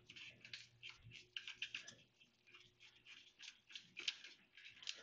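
Faint, irregular light clicks, several a second, from a hand driver and bit turning out a primary chain case cover screw that has just broken free.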